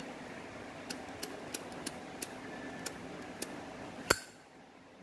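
A series of light metallic clicks from a 1987 chrome Zippo lighter being handled, then one sharp, loud metallic click with a brief ring about four seconds in: the lid and cam snapping.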